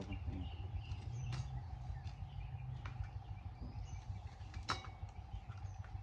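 Outdoor ambience with a steady low rumble, a few scattered sharp taps, the loudest about three-quarters of the way through, and faint bird chirps.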